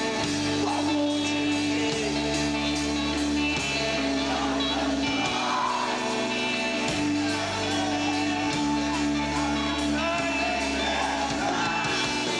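Live emo rock band playing a song with singing: guitars and bass holding chords that change every second or two.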